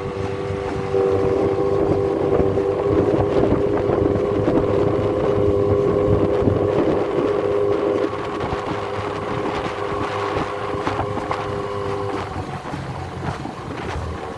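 Small outboard motor pushing an aluminium jon boat skiff, running with a steady hum over wind and water noise. It drops in level about eight seconds in, and its tone fades near the end as the boat is throttled back to come in to the dock.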